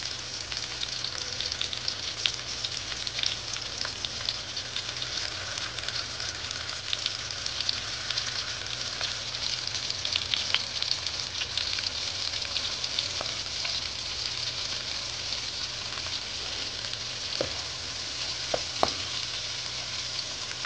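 Onion, bell pepper, olive and garlic pieces sizzling steadily in hot coconut oil in a metal pot, with many small pops. A few sharper clicks come near the end.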